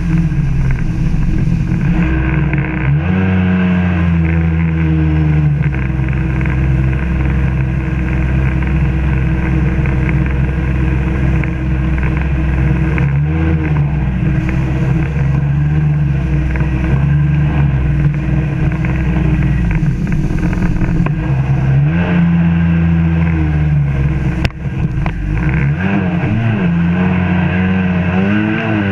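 Two-stroke Rotax 787 twin engine of a 1996 Sea-Doo GSX 800 personal watercraft running hard, heard from on board. Its pitch falls and climbs again a few times as the throttle is eased and opened, and near the end the sound briefly drops before the engine revs back up.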